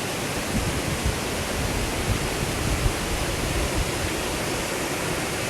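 Waterfall: a steady rush of falling water, with brief deeper surges now and then.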